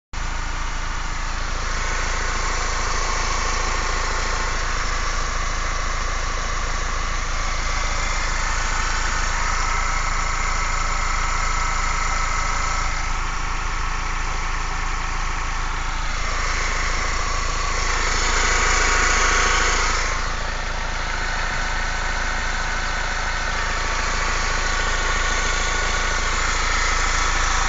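Vehicle engine idling with a steady low hum and noisy upper clatter, growing briefly louder about two-thirds of the way through. The engine is shaking at idle, and the owner does not know which fault the noise comes from.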